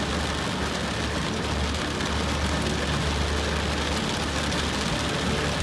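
Heavy rain hitting the windshield and roof of a moving Honda Civic, heard inside the cabin as a steady hiss over a constant low road and engine rumble.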